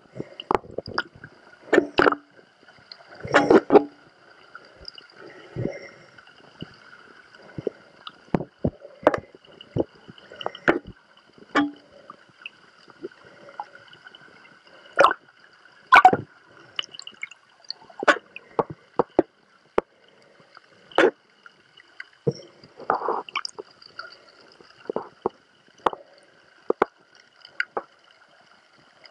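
Underwater sound picked up by a camera in a waterproof housing: irregular sharp clicks and knocks, some in quick clusters, over faint gurgling water and a faint steady high hum.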